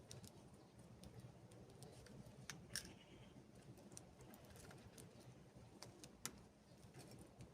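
Canaries pecking at seed: faint, scattered small clicks and taps, a few sharper ones, over a low hum.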